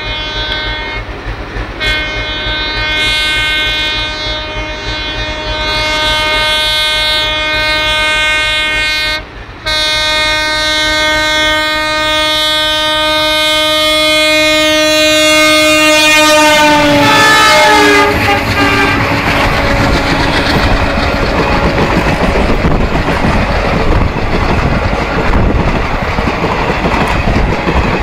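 WDM3D diesel locomotive's horn sounding long and almost unbroken, with one brief break about nine seconds in. Its pitch drops sharply as the locomotive passes at speed. Then the rumble and wheel clatter of the train's coaches take over.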